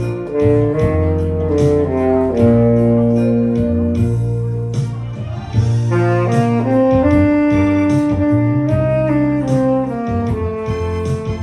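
Tenor saxophone playing a melody of held and stepping notes over a backing track with a bass line and a steady drum beat.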